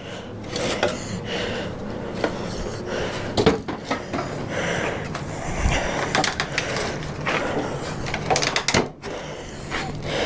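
Wooden shipping crate being pried apart: a continual creaking and scraping of boards and nails, with sharp knocks and clicks throughout.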